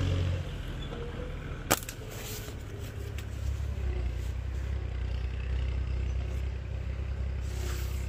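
A slingshot fired once, about two seconds in: one sharp snap as the flat rubber bands release, over a steady low hum.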